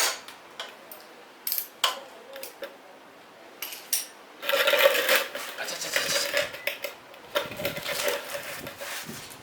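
Metal clinks and scrapes of tools and parts being handled during a motorcycle oil change: a few separate sharp clinks, then from about halfway a longer stretch of continuous rattling and scraping.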